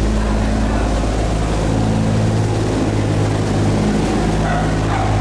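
A loud, steady engine drone with a few low humming tones held at an even pitch.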